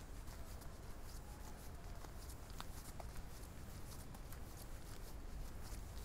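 Footsteps crunching on a gravel path, with wind rumbling on the microphone.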